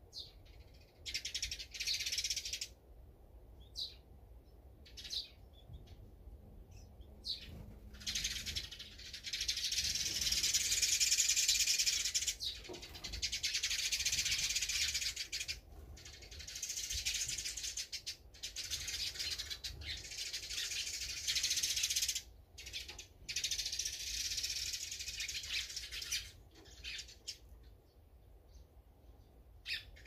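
Small songbirds chirping and chattering in dense stretches of several seconds, with short pauses between, loudest around the middle.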